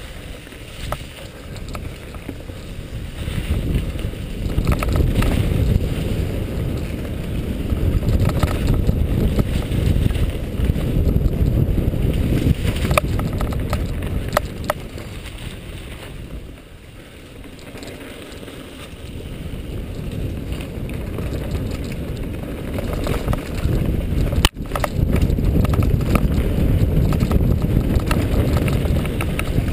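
Wind buffeting the camera microphone on a mountain bike descending singletrack, mixed with knobby tyres rolling over dry fallen leaves and the bike rattling over bumps, with scattered sharp clicks. The rush swells and eases with speed, dropping back about halfway through, and briefly cuts out once late on.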